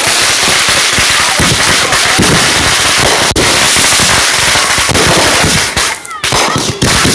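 Fireworks going off: a dense, continuous barrage of crackling and popping bangs, easing briefly about six seconds in.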